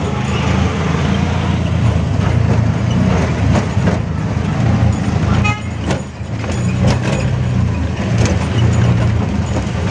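Auto-rickshaw (tempo) engine running steadily as it drives, heard from inside the cab, with frequent knocks and rattles from the body. A short horn toot sounds about five and a half seconds in.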